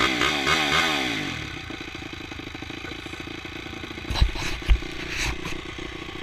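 Honda CRF250F four-stroke single-cylinder dirt bike engine revved up and down a few times, then settling to a steady idle. Two loud low thumps come about four seconds in, half a second apart.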